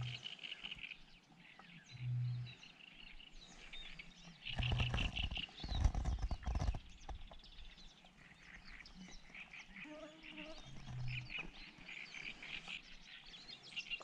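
Wild animal calls: short, rapidly pulsing trills repeated every second or two, with a cluster of knocks and clatter about five to seven seconds in.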